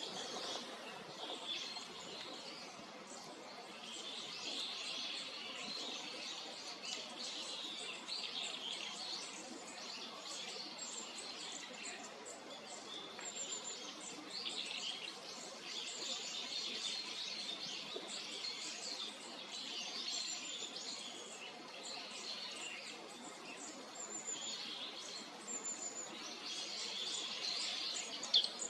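Wild birds chirping and calling steadily in a dense background chorus, with short thin high-pitched notes now and then.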